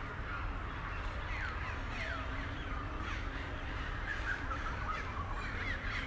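Birds calling in the tree canopy, with repeated sharp downward-sliding calls through a busy background chorus, over a low steady rumble.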